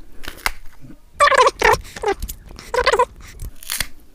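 A kitchen knife slicing pieces off a peeled raw green mango, with short crisp cuts. Three short wavering pitched calls stand out louder, about a second in, just after, and near three seconds in.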